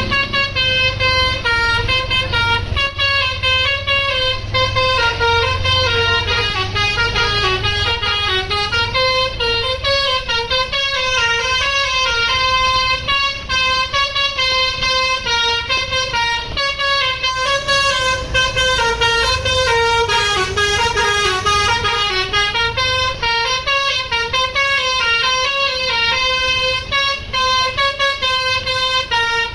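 A bus's Basuri multi-tone telolet horn playing a fast melody of short stepping notes without a break, over a low rumble.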